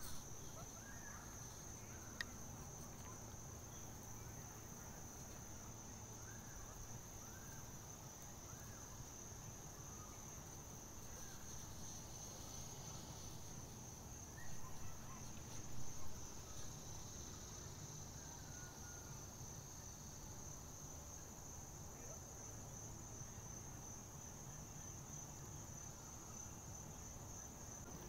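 Insects trilling in one steady high-pitched drone by the pond, with faint scattered chirps and a brief louder sound about halfway through.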